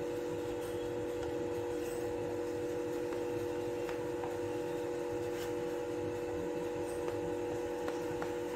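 Steady machine hum made of a few even tones, with a few faint clicks over it.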